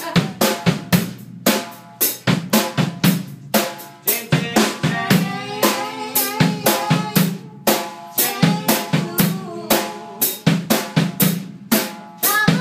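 Acoustic drum kit being played: a busy run of snare, bass drum and tom strikes, about three or four a second, with the drums ringing between hits.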